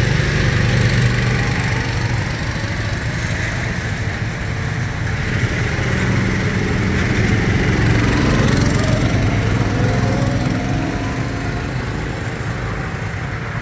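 Small gasoline go-kart engines running together in a steady drone, with some pitch rising and falling in the middle as the karts' engines speed up and slow down.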